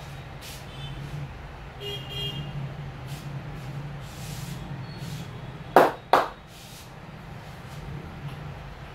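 Two sharp hand smacks about half a second apart from a barber's head massage, over a steady hum of street traffic with brief vehicle horn toots and softer rubbing strokes.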